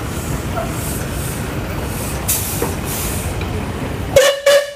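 Steady low rumble with a brief hiss a little past two seconds in. Near the end come two short blasts of a steam traction engine's whistle, a single note with overtones.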